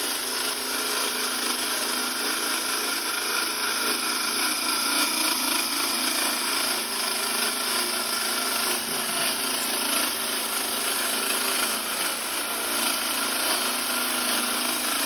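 Core drill running steadily, an unbroken whir and grind with no pauses or changes in speed.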